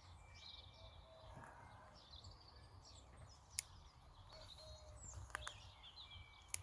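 Faint birdsong: several small birds chirping and trilling. Two sharp clicks stand out, one a little past the middle and one near the end.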